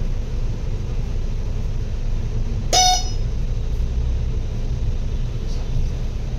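Steady low vehicle rumble, with one short horn toot a little under three seconds in.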